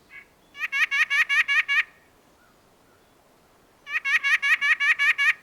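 White-breasted nuthatch song: two quick series of nasal 'wha-wha-wha' notes, about eight notes to a series, about two seconds apart.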